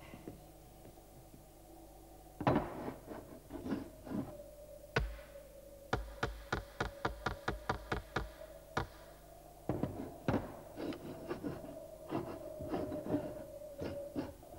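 A series of knocks and taps on wood: scattered at first, then a quick even run of about five taps a second, then scattered again. A steady held tone sounds under them throughout.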